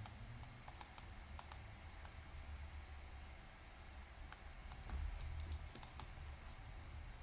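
Faint, irregular clicks from a computer mouse and keyboard while someone works at the computer, over a steady low hum.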